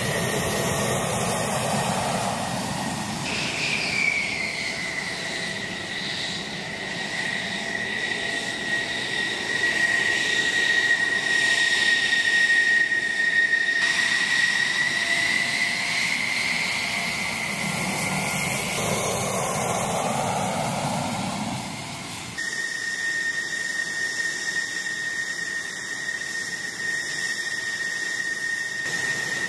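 Military jet engines idling and taxiing: a high, steady turbine whine over a rushing jet noise. About three seconds in, the whine starts high and slides down in pitch, then rises a little later on. The sound changes suddenly a few times.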